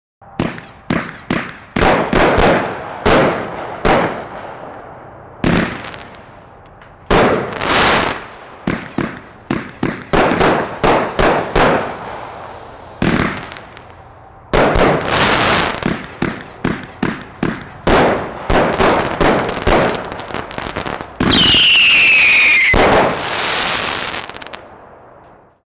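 A 35-shot, 500 g consumer fireworks cake firing: rapid sharp shots and aerial bursts come in several volleys with short pauses between them. About 21 seconds in, a loud whistle falling in pitch sounds for over a second among the shots.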